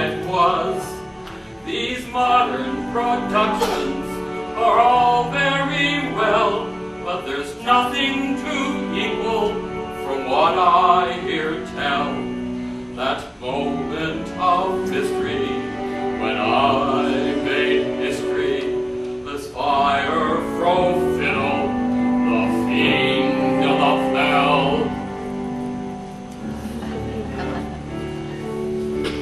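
Solo singing from a stage musical, the voice wavering with vibrato over a sustained accompaniment.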